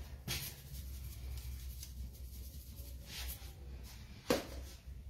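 Faint handling noise of things being picked up and set down on a kitchen counter, with a sharper knock a little after four seconds, over a low steady hum.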